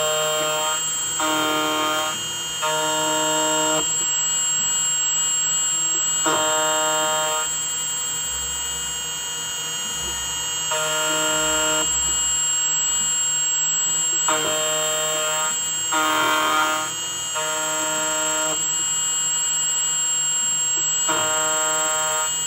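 Automatic key cutting machine running a calibration cut: a steady high whine from the cutter spindle under a low hum, broken by short pitched tones about a second long, at differing pitches, as the axis motors move the carriage.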